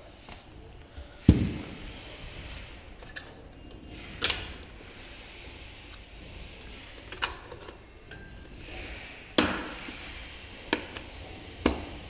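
Handling knocks and clicks as the cover plate is fitted back over an electric scooter's charging port: about half a dozen spread-out taps, the loudest a dull thump just over a second in.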